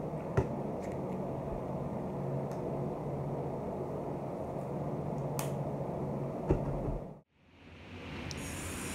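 Steady low room hum with two small handling clicks from a toothbrush and toothpaste tube. The sound cuts out briefly near the end.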